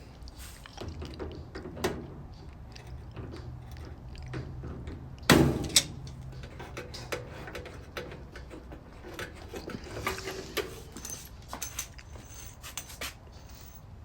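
Small metallic clicks and clinks of channel locks and threaded hose couplings as the water fill hoses are loosened and unscrewed from a washer, with one louder knock about five seconds in.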